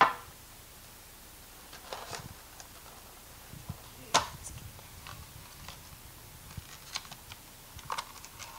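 Clicks and knocks of a Pokémon card tin being handled: the metal tin and its clear plastic insert tapped and shifted by hand. The sharpest knock comes right at the start and another about four seconds in, with lighter taps scattered between.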